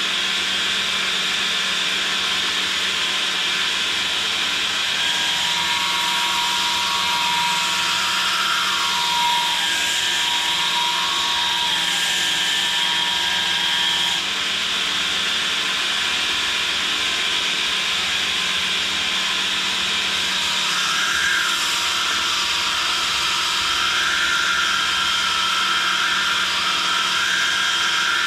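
Belt grinder running steadily, with a small steel kiridashi blade pressed against the belt, grinding its bevel.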